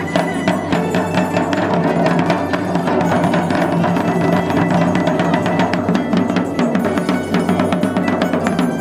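Sicilian tamburo, a deep marching drum, beaten with two wooden sticks in a fast, unbroken festival rhythm.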